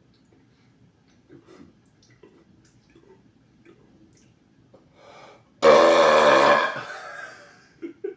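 A loud, deliberate belch from a man, coming suddenly about five and a half seconds in after a short breath, pitched and lasting just over a second before fading out.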